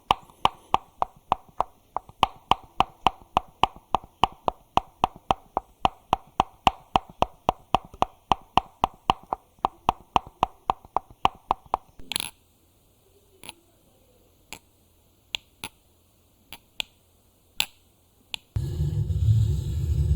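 Close-miked ASMR trigger sounds: rapid, even clicking or tapping at about four a second for some twelve seconds, then a few scattered clicks. Near the end it changes to a loud low rubbing rumble against the microphone.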